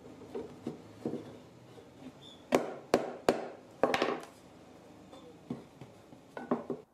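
Wooden toolbox parts knocking against each other and a wooden workbench as a joint is fitted and handled: a few light taps, a cluster of sharp knocks about halfway through, and a few more just before the end.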